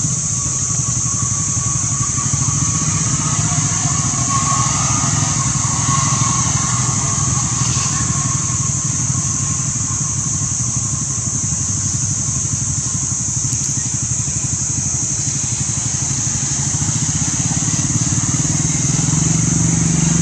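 A steady motor drone, like an idling engine, runs without change under a constant high hiss.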